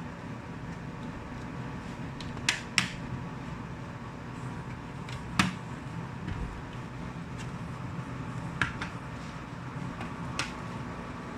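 A handful of sharp clicks and taps from laptop parts being handled, two close pairs among them, over a steady low hum.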